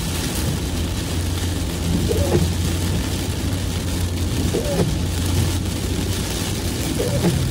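Steady low rumble of a car driving in the rain, heard from inside the cabin: engine and tyre noise on a wet road under an even hiss of rain on the glass.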